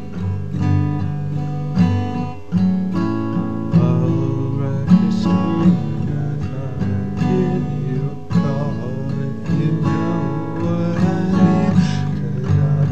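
Instrumental blues guitar jam built from overdubbed guitar tracks: picked notes and strums over a moving low line.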